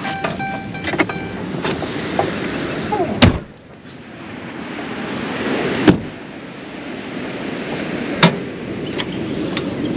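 A Ram 2500's door-open chime beeps for about a second, then sharp clicks and knocks follow as the bonnet is released, unlatched and raised on its gas struts, over a steady rushing of wind.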